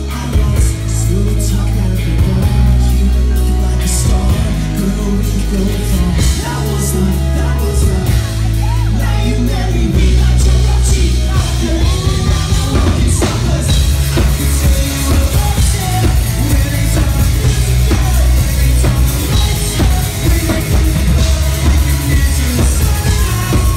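Live rock band playing a song at full volume, with distorted electric guitar, bass guitar and a drum kit driving a steady beat, and singing over the top.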